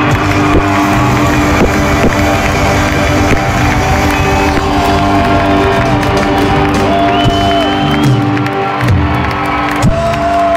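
Rock band playing live at arena volume, heard from within the audience, with the crowd cheering and whooping over the music.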